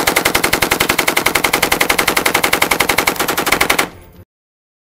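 M249 SAW light machine gun firing one long continuous automatic burst, about a dozen shots a second, stopping about four seconds in with a brief fading tail.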